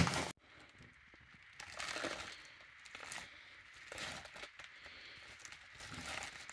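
Faint, intermittent crinkling of packaging being handled, in a few short, scattered bursts.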